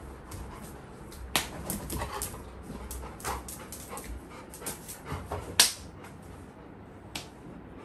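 Labrador puppy making dog sounds during rough play, amid scattered clicks and knocks as it scrambles over the wooden sofa and the tiled floor. The loudest knock comes about five and a half seconds in.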